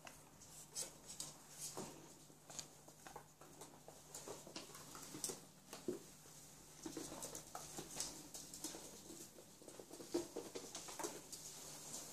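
Faint, irregular taps and scrapes of a flat microfibre mop being pushed over a hard floor while a ferret scrambles about and clings to the mop head, its claws skittering on the boards. The swishing of the mop becomes steadier in the second half.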